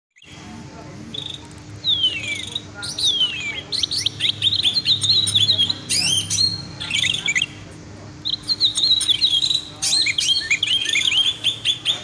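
Songbirds chirping and twittering in quick, varied phrases, with two long falling whistles about two and three seconds in, over a faint steady hum.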